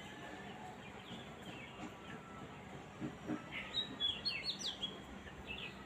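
Small birds chirping, with short quick calls that come thickest about four seconds in, over a steady background hiss.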